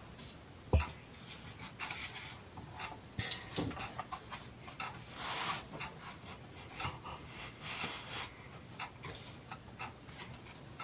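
Faint handling of a book: soft paper rustles as pages are turned, with a low thump about a second in and a sharp click a few seconds later.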